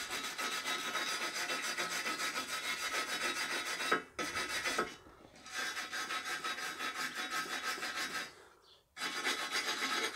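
Hand wire brush scrubbing fresh welds on steel horseshoe handles fixed to a harrow disc, with rapid back-and-forth scratching strokes to clean up the weld. The brushing breaks off briefly about four seconds in and again just after eight seconds.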